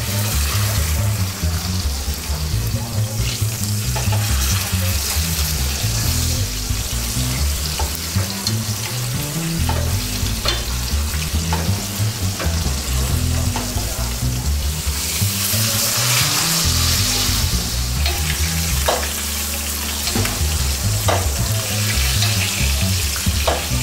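Porterhouse steak sizzling in hot oil in a cast iron skillet, a steady frying hiss, with a few sharp metallic clinks of tongs and a basting spoon against the pan as the steak is flipped and hot oil spooned over it.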